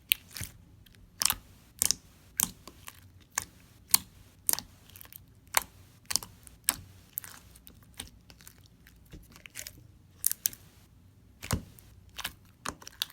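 Stretchy metallic silver slime being pressed and squished by hand, giving irregular sharp pops and clicks, about one a second, with a quieter stretch just past the middle.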